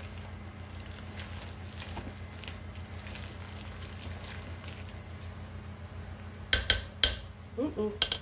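Silicone spatula stirring and folding a thick, creamy shredded-chicken-and-cheese mixture in a ceramic slow-cooker crock: soft scraping and squishing over a steady low hum, with a few sharp knocks of the spatula against the crock a little before the end.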